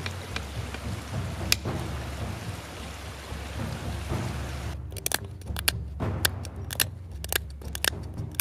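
Flint knapping: a few sharp strikes in the first two seconds, then from about five seconds on a quick run of sharp clicks as an antler tine presses small flakes off the flint's edge. A steady hiss fills the first half, and low background music with timpani plays underneath.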